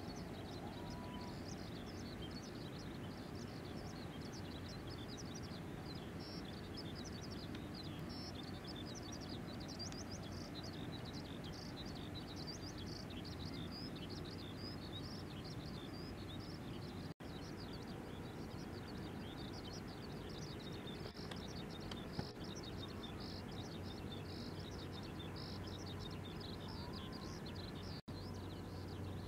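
Outdoor ambience of many small birds chirping rapidly and continuously over a steady low rumble, broken by two momentary silent gaps.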